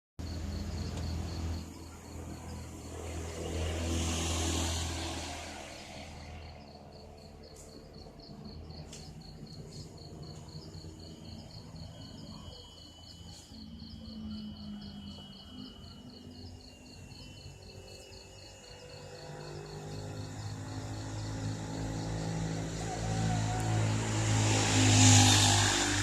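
Outdoor ambience: a fast, even insect chirping, with a low rumble and a rushing noise that swell twice, once about four seconds in and loudest near the end.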